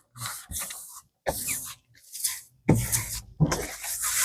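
Diamond painting kit packaging being handled: a run of about six short rustles and crinkles, the last two the loudest.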